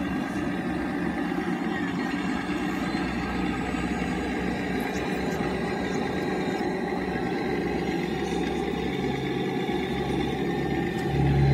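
Radio-controlled hydraulic excavator's pump and motor running steadily as the model digs, swings and dumps dirt. A lower, steady hum comes in about nine seconds in and grows louder near the end.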